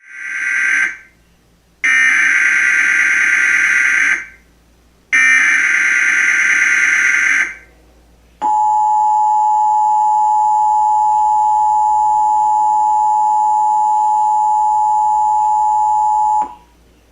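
Emergency Alert System tones: three bursts of SAME header digital data, the first cut short, each about two seconds long with about a second between them, then the EAS attention signal, two steady tones sounded together and held for about eight seconds before cutting off sharply.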